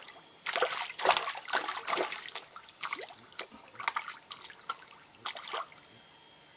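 A hooked white piranha thrashing at the water surface, splashing in irregular bursts that stop shortly before the end. A steady chorus of crickets runs underneath.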